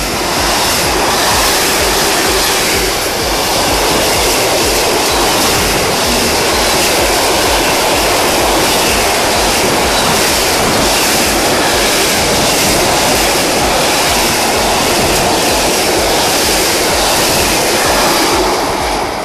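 Container freight train passing close at speed: a loud, steady rush and rumble of steel wheels on the rails with a fast, regular clatter from the wagons. It swells in at the start and dies away at the end as the train clears.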